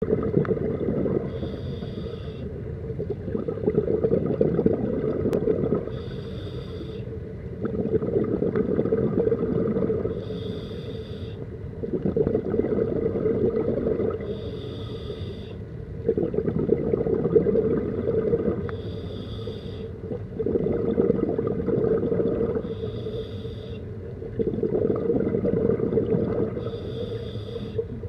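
Scuba diver breathing through a regulator underwater: a short hiss of inhaled air about every four seconds, each followed by a longer, louder rush of exhaled bubbles, seven breaths in all.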